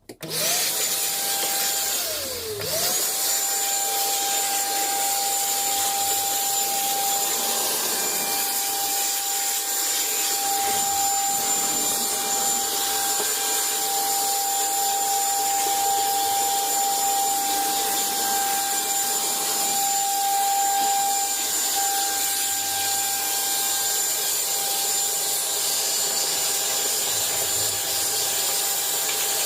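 Household vacuum cleaner switched on, its motor whine rising to speed, dropping sharply about two seconds in and spinning back up, then running steadily with a high whine and airflow rush.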